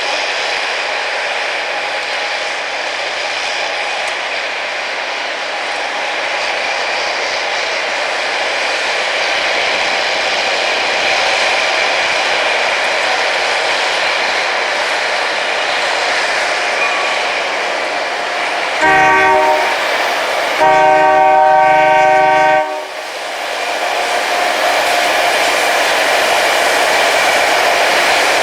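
Rail grinding train working the track: a steady, loud grinding noise with a high whine running through it. About two-thirds of the way through, a train horn sounds one short blast and then a longer blast of about two seconds.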